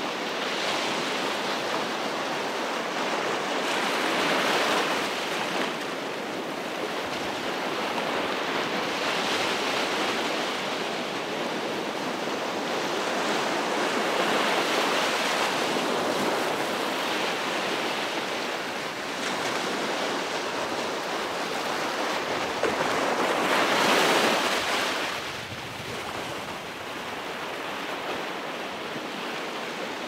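Ocean surf washing onto a beach: a continuous rushing wash that swells as each wave breaks, about every five seconds. The loudest wave comes about two-thirds of the way through, and the sound eases after it.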